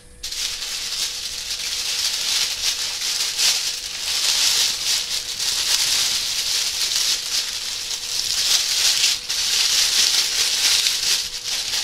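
Clear plastic roasting bag crinkling and rustling continuously as a whole catfish is pushed and worked into it by hand.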